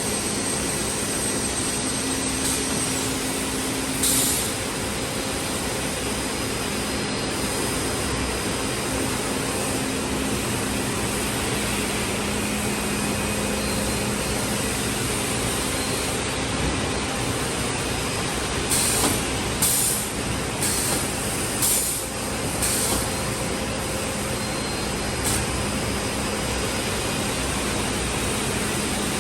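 CNC panel saw running with a steady machine hum and a high whine. Short hisses of compressed air come from its pneumatic system: one about four seconds in, and several in quick succession about twenty seconds in.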